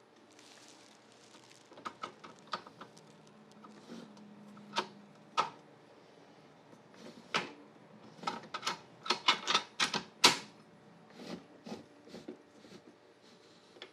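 Hands working parts of a cordless table saw: a string of sharp, irregular clicks and knocks, coming quickest about eight to ten seconds in.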